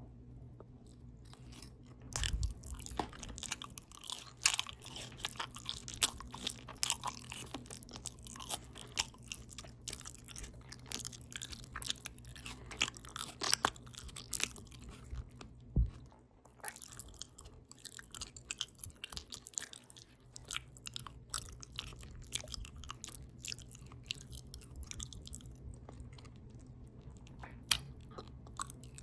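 Open-mouth chewing right at the microphone: wet smacking and crunching clicks from a mouthful of potato taco bowl with ground beef, cheese, lettuce and tomato. It starts about two seconds in and pauses briefly around the middle.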